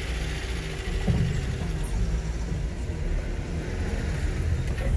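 A car driving, its engine and road noise making a steady low rumble.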